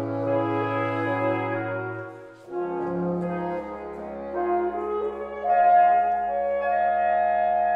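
Reed quintet of oboe, clarinet, alto saxophone, bass clarinet and bassoon playing slow, held chords. The chord breaks off briefly about two and a half seconds in, then the ensemble comes back in and swells louder past the halfway mark.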